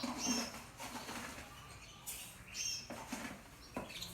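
Caged canaries giving short, high chirps, twice in a few seconds, with brief rustling knocks between them.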